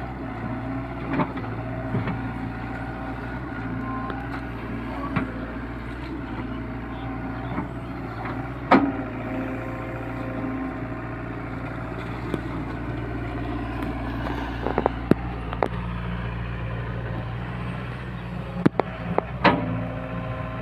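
SDLG crawler excavator's diesel engine running steadily while the machine digs in wet mud, with scattered sharp knocks from the bucket and arm, the loudest about nine seconds in and a cluster near the end.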